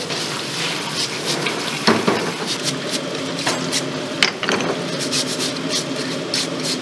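Tap water running into a stainless steel sink while sea snail shells are scrubbed with a plastic brush, with brush scraping and the clicks of hard shells knocking together and against the sink.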